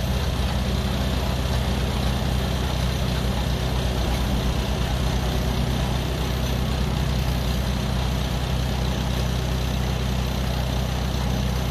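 Farmall tractor engine idling steadily, standing by to help start a 1921 Rumely OilPull that has not yet fired.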